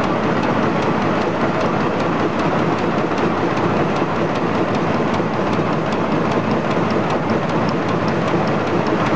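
Two-colour single-lane napkin making machine running at production speed, a steady mechanical clatter of its printing and embossing rollers with a fast, regular ticking over it.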